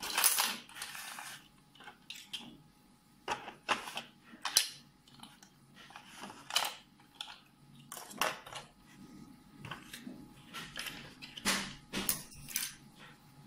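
Irregular plastic clicks and knocks as trimmer heads, guide combs and the trimmer body of a Kemei KM-600 grooming kit are handled and set into its plastic stand, with a louder clatter at the very start.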